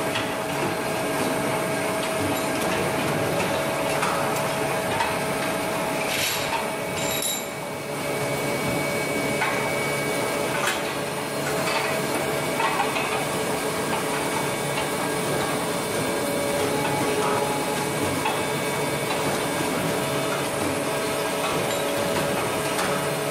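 Chain-link production line machinery: a steady hum with scattered metallic clanks and knocks from the furnace, bending and pressing machines.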